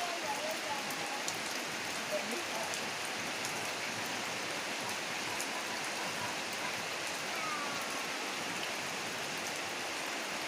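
Steady heavy rain falling and splashing on surfaces, an even hiss.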